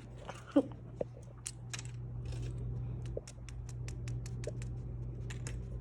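Crisp freeze-dried banana slices clicking and tapping against each other and the tray as they are handled: a run of light, dry clicks that come several a second in the second half. A steady low hum runs underneath.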